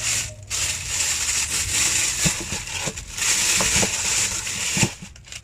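Rustling and crinkling of packaging as the printer's accessories are handled, with a few light knocks.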